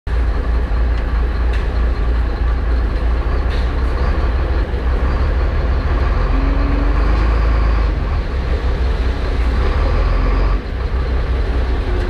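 Chenglong concrete mixer truck's diesel engine running steadily with a deep low rumble, heard from inside the cab; the rumble dips briefly near the end.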